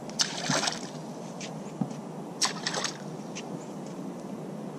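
Matrix Float popping cork being popped on the water, twice, about two seconds apart: each pop is a splash of water thrown by the cup face. A few faint clicks come from its short wire and beads, a fairly quiet cork.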